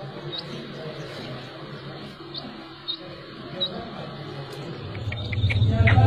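Black francolin chicks peeping: a thin, high, short peep about once a second. Near the end a low rumbling noise comes in and the peeps turn quicker and louder.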